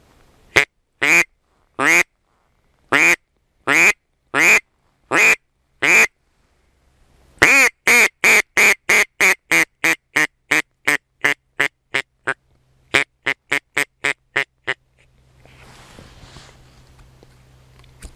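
Duck call (манок) blown to imitate a mallard hen, calling ducks in to the decoys. About eight loud single quacks, then a long run of quicker quacks that fade as they go, with faint rustling near the end.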